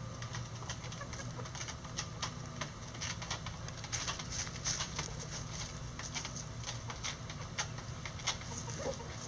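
Bantam chickens pecking and scratching through dry leaf litter: irregular rustles and light ticks, busiest from about four seconds in.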